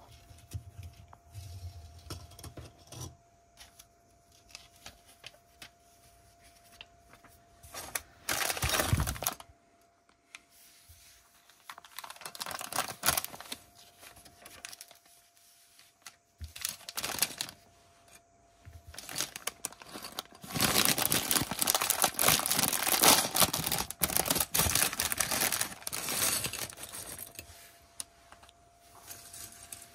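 Plastic Lego pieces being handled: small clicks and rattles of bricks, with bursts of plastic rustling and crinkling. The longest and loudest rustling comes about two-thirds of the way through.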